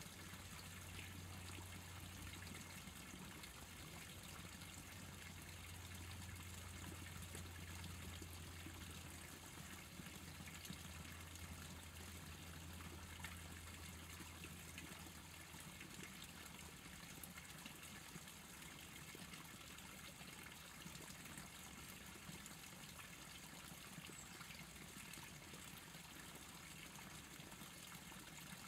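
Faint, steady trickle of a small stream, heard as an even hiss. A low hum runs under it for the first half and fades out about halfway through.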